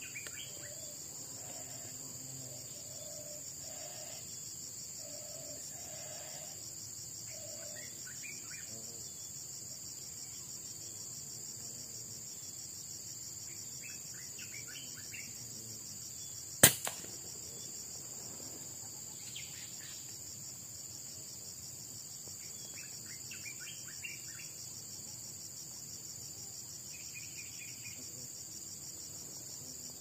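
A steady high-pitched insect chorus, with a single sharp shot from a scoped air rifle about halfway through. A few faint bird chirps come and go.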